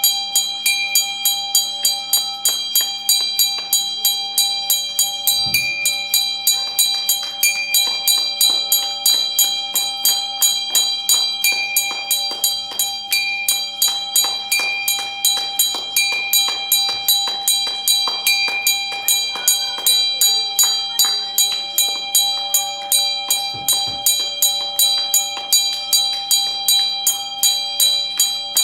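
A bell rung over and over at an even pace, about three strokes a second, its ringing tones sounding on without a break. A dull thump comes twice, once early and once near the end.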